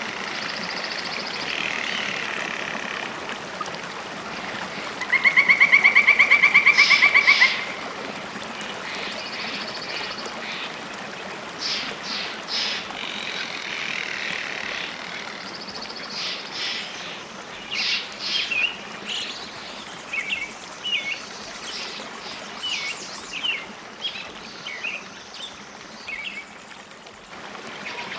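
Small birds singing and calling. A loud, fast trill lasts about two and a half seconds, starting about five seconds in, and is followed by many short chirps and phrases, over a steady background hiss.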